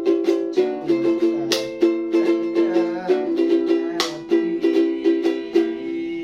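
Cipot, a small ukulele-type string instrument, strummed in chords with sharp strokes a few times a second, each chord ringing briefly.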